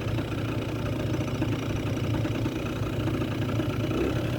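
Kymco Super Fever ZX 50cc two-stroke scooter engine running steadily at low speed, starved of fuel: the owner judges that it doesn't get enough fuel and blames the carburetor.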